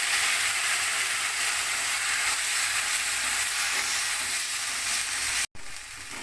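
Ground spice paste of onion, garlic, ginger, cumin, coriander and chilli sizzling loudly in hot oil with fried potatoes in a kadai. The sizzle cuts out abruptly about five and a half seconds in and comes back fainter.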